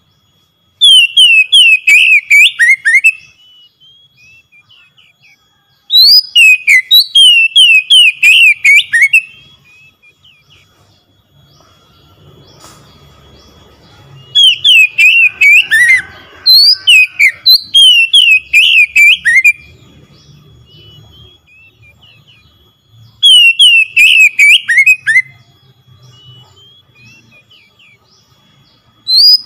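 Oriental magpie-robin singing in loud, fast phrases of whistled notes that each fall in pitch. The phrases come in five bursts of about two to three seconds, with pauses between them. A faint, steady high tone carries on underneath.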